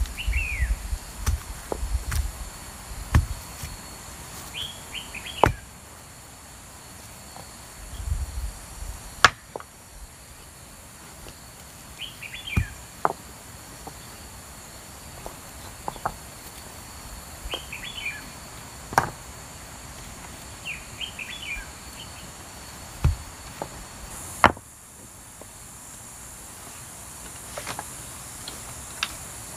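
Sharp single knocks every few seconds at uneven intervals, like work with a tool on wood, over short descending bird chirps repeated now and then and a steady high insect drone.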